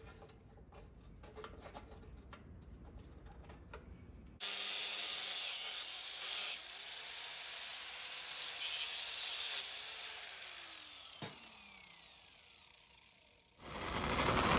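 Faint handling clicks and rubbing on the steel, then about four seconds in an abrasive cutoff wheel starts grinding into hardened file/leaf-spring steel, a steady hiss with a whine that slides up and down. Near the end a louder gas torch burner starts up.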